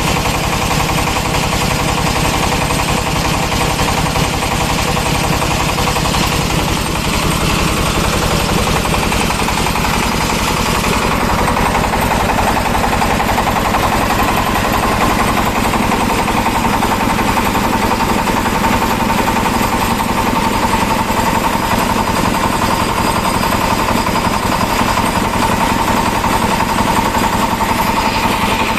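26 hp single-cylinder ZS1110 diesel engine running steadily with a rapid, even knock, belt-driving an air compressor pump. About eleven seconds in, a steady whine comes in over the engine and holds.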